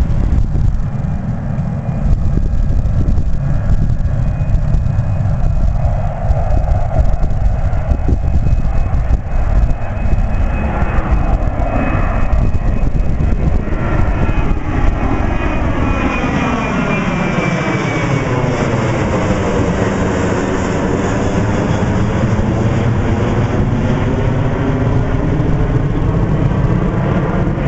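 Boeing 737 jetliner's twin turbofan engines at takeoff thrust: a loud, steady jet rumble as it climbs out. About halfway through, as the jet passes overhead and goes away, a phasing sweep falls and then rises in pitch.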